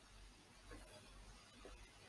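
Near silence: faint room tone with a low steady hum and a couple of faint light clicks.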